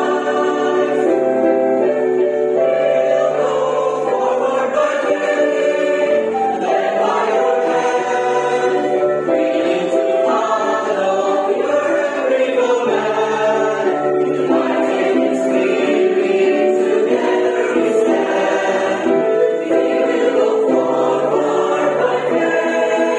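Mixed-voice church choir singing a sacred choral anthem in parts, with many voices holding chords together at a steady level.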